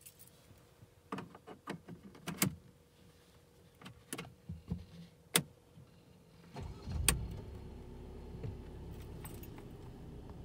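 A few sharp clicks and taps, then the Mercedes-Benz C180's 1595 cc four-cylinder petrol engine starts about two-thirds of the way in with a short flare and settles into a steady idle.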